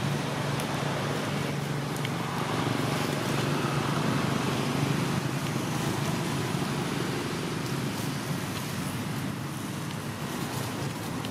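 Steady outdoor background noise with a low hum, and a few faint ticks.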